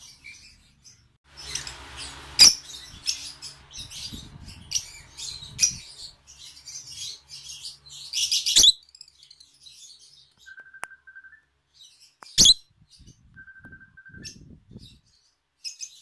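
Small pet parrots chirping: a run of quick, high, sharp chirps, with a few loud piercing calls standing out, and later two short steady whistled notes.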